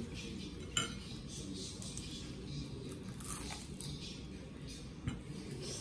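Close-up eating sounds: biting into and chewing a fried pork chop held in the hands. A sharp tap comes about a second in, over a steady low hum.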